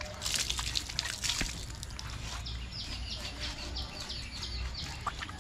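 Water poured from a plastic mug splashing over a skinned goat carcass and pattering onto the ground, in irregular splashes that are heaviest in the first second or so.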